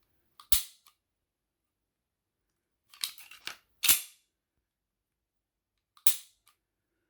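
Sharp metallic clacks of a pistol slide being worked on its frame: the Walther Q5 Match slide being racked and snapping forward on the PPQ M2 frame. There is one clack about half a second in, a short rattle of sliding metal ending in the loudest clack around four seconds in, and one more near the end.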